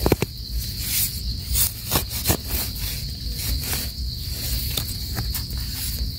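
Termite mushrooms being pulled by hand from loose soil: scattered crackles and rustles of earth and stems. A steady high insect drone runs underneath.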